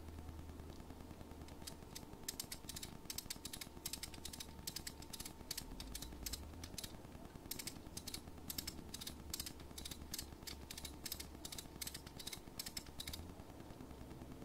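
A quick, uneven run of sharp clicks, about three or four a second, starting about two seconds in and stopping about a second before the end, over a low steady hum.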